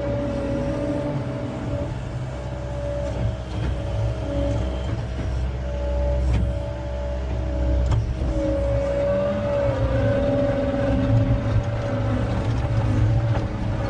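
John Deere 333E skid steer's diesel engine running under load with a steady, slightly wavering whine as it drives the Wolfe Ridge skid-steer log splitter, with a few sharp knocks along the way.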